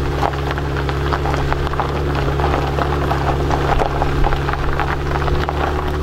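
Irregular crackling and rustling of someone walking a trail through dry grass with a handheld camera, over a steady low hum.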